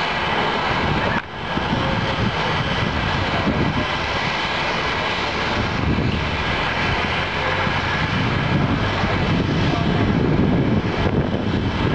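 Jet airliner engines running: a steady rushing noise with a thin, high, steady whine on top.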